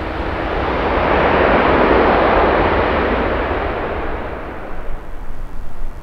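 Jet airliner passing close by on final approach to land, its engine noise swelling to a peak about two seconds in and then fading away.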